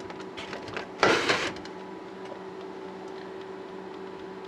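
A few light knocks and a short loud rustle of handling about a second in, then a steady low electrical hum.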